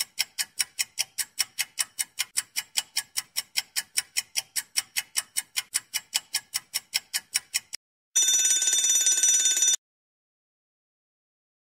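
Countdown-timer sound effect: rapid clock ticking, about five ticks a second, that stops near eight seconds in. A bell rings for about a second and a half to mark time up.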